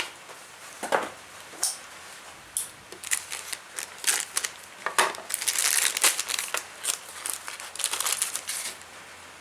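Plastic kit packaging crinkling and crackling in irregular bursts as a part is handled and taken out of it.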